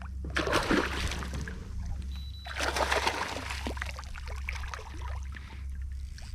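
Water splashing and sloshing in two main bursts, the first just after the start and the second about halfway through, over a steady low hum.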